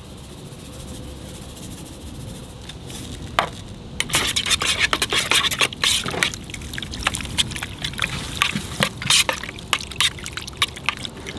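Salt being shaken onto raw fish curing in lime juice: quiet for the first few seconds, then, about four seconds in, a run of quick, irregular clicks and wet pattering that lasts to the end.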